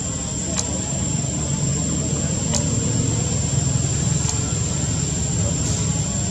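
A steady low rumble with a constant high-pitched whine above it, and four faint sharp ticks spread through it.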